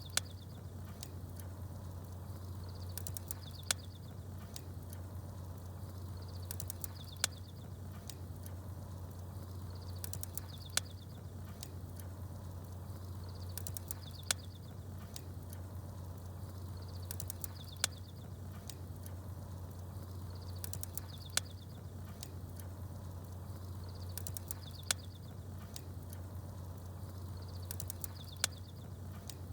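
Campfire crackling, with a sharp pop about every three and a half seconds and small birds chirping high, over a steady low hum. The pops and chirps come back at exactly even spacing, like a looped recording.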